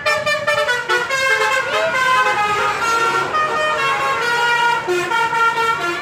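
Bus telolet horn playing a tune: a loud, continuous run of multi-tone notes that step from pitch to pitch about every half second.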